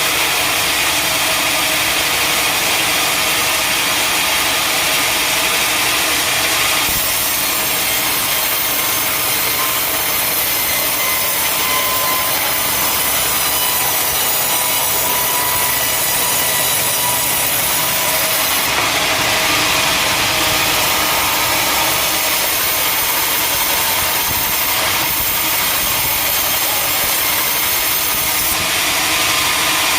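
Sawmill saw cutting through a teak log: a steady, loud, hissing cut whose tone shifts a few times along the way.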